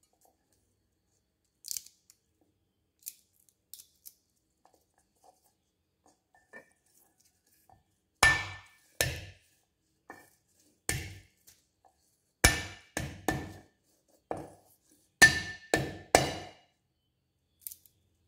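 A cleaver striking garlic cloves on a wooden chopping board: about ten sharp knocks in clusters from about eight seconds in, each with a brief metallic ring from the blade. Before them come only a few faint clicks of cloves being handled and peeled.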